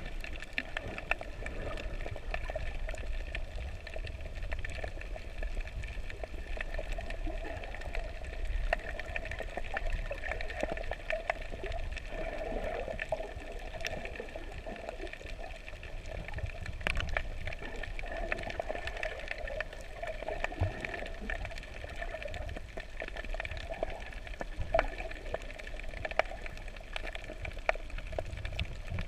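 Underwater ambience heard through a submerged camera: a steady muffled water rush with a low rumble and scattered faint clicks and crackles.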